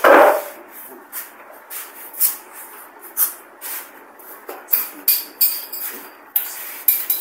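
Irregular sharp clicks and clinks, roughly two a second, like glass bottles and objects being handled and set down on a bar counter, after a louder thump at the very start.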